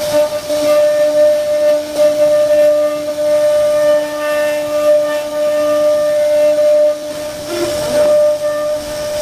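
CNC router spindle running at a steady high pitch over a hiss of cutting as it carves a wooden door panel. A brief wavering sound breaks in a little before the end.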